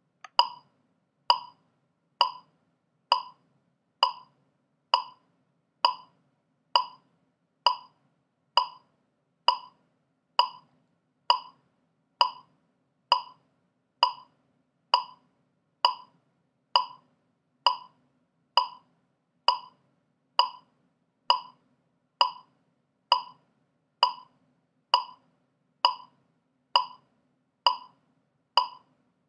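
Metronome clicking steadily at 66 beats per minute, one identical, unaccented click a little under once a second, starting a moment in.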